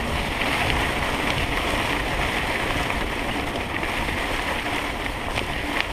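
Tall green wheat stalks swishing steadily against the wheels and frame of a mountain bike pushing through the field, over a low wind rumble on the microphone.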